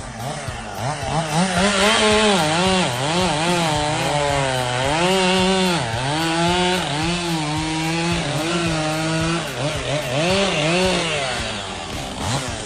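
Chainsaw running hard, its engine pitch dipping and climbing back again and again.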